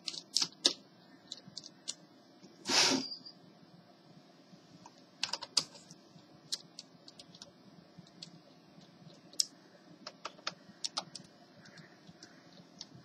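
Scattered light clicks and taps of a screwdriver and fingers on the plastic underside of an HP 6530b laptop as its keyboard screws are loosened. One louder, brief noise comes about three seconds in.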